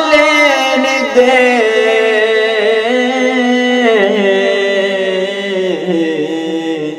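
A man singing a Punjabi devotional kalam solo, drawing out long wavering notes that bend up and down, over a steady low drone.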